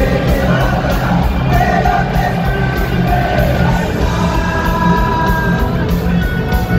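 Live rock band playing at full volume, recorded from among the audience in an arena: electric guitars, bass and drums, with singing in the first half and long held notes after, over a heavy, boomy low end.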